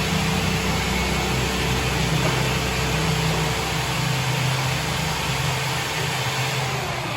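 A motor running steadily with a constant hiss and low hum, cutting off abruptly at the end.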